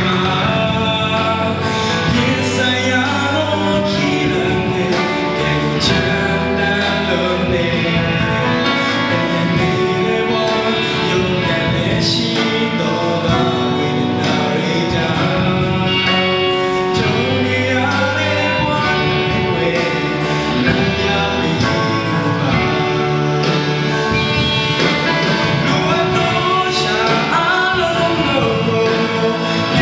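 A young man singing a gospel solo through a handheld microphone over instrumental accompaniment, with the music continuous.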